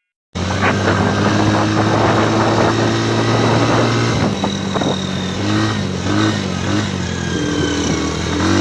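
A motor vehicle's engine running with a rushing hiss over it, cutting in sharply just after the start. Its pitch holds steady at first, then rises and falls a few times in the second half.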